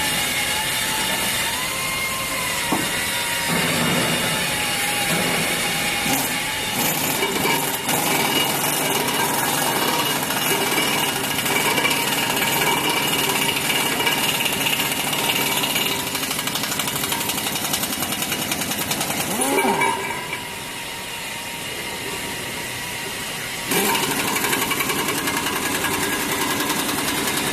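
Steady, dense clatter and hiss of metalworking machinery on a production floor, with a machine whine that wavers near the start and a short rising sweep about twenty seconds in. The noise drops for a few seconds right after the sweep, then comes back at full level.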